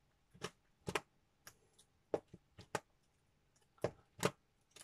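Upper Deck MVP hockey trading cards being leafed through by hand: a string of light clicks and snaps as the cards slide and tap against each other, about ten at irregular intervals.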